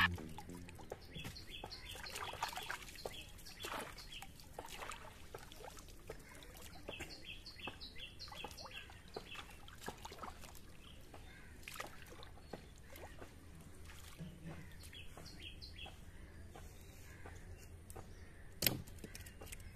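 Faint outdoor ambience of birds chirping in short runs of quick high notes, over light splashing and dripping as a fishing net is handled in shallow water. A single sharp knock near the end.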